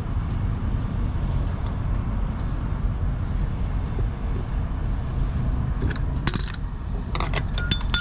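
Metal clinking of hand tools and bolt hardware during work on a truck's air-spring mounting, a few sharp clinks with a short ring about six seconds in and again near the end, over a steady low rumble.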